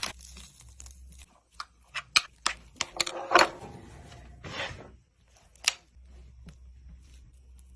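Scattered sharp clicks and taps with a few short scraping rustles, the handling noises of food preparation; the clicks come thickest between about one and a half and three seconds in.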